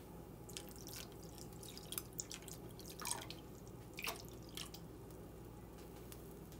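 Water poured in a thin stream from a plastic cup into a pan of peeled boiled quail eggs, heard as a faint series of drips and plinks, two of which drop in pitch about three and four seconds in.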